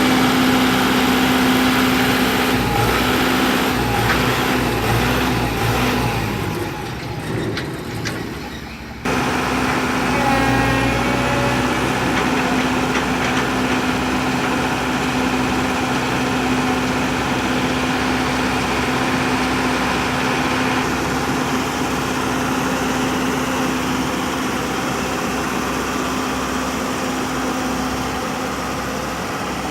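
A vehicle engine running steadily with a constant hum. About seven seconds in it fades and then cuts back in abruptly about two seconds later.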